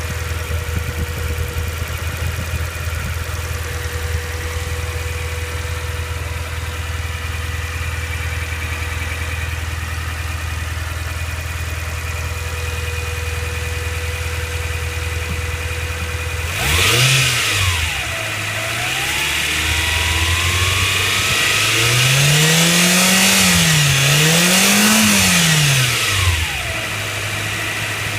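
Mitsubishi Pajero Mini's 4A30 turbocharged engine idling steadily with a constant tone over it, then revved up and down several times from about two-thirds of the way in. A high whine from the turbocharger rises and falls with the revs: the abnormal turbine noise of a turbo the owner tags as blown.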